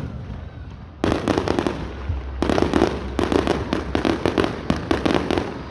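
Aerial fireworks crackling: two runs of rapid sharp pops, a short one about a second in and a longer one from about two and a half seconds.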